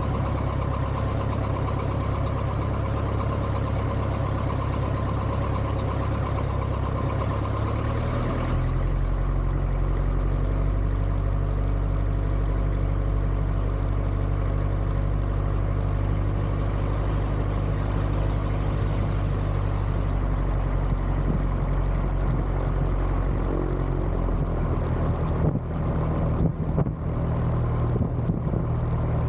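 Piper J3 Cub's air-cooled flat-four engine running steadily at low power during taxi; its tone shifts slightly about eight seconds in, and a few short crackles break in near the end.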